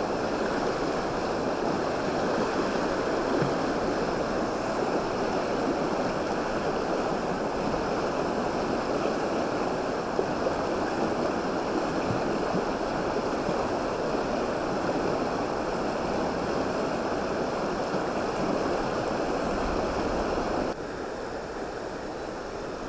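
Steady rushing of fast, shallow river water running over a rocky riffle. The sound drops to a lower level near the end.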